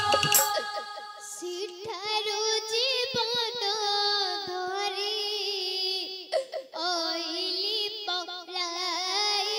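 A high female voice sings a slow, ornamented line with a wide, wavering vibrato. The drummed instrumental music stops about half a second in, and the voice then sings on alone, breaking off briefly a little past halfway.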